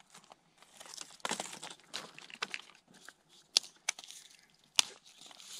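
Dry sticks and twigs being handled and broken by hand: crunching and crackling, then a few sharp snapping cracks in the second half.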